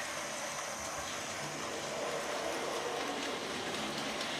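Hornby model locomotive 5972 Olton Hall, the Hogwarts Express, running along the layout track with its coaches. Its electric motor and wheels on the rails make a steady whirring rumble.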